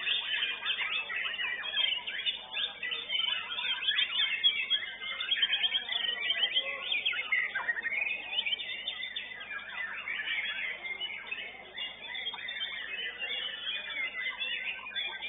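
White-rumped shama (murai batu) singing a continuous, fast, varied song of quick chirps and whistles.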